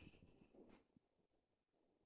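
Near silence: a sleeping dog breathing faintly in the first second, with a faint high tone that stops about half a second in.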